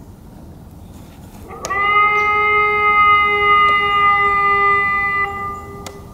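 Indian Point nuclear plant emergency warning siren under test: about a second and a half in it winds up quickly, holds one steady tone, then dies away near the end.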